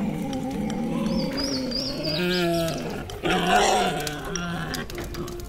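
A layered medieval-village soundscape with its sounds playing at once: animal calls and voices over a noisy bed, with scattered clicks. A bird trills about a second in, and a steady held note begins near the end.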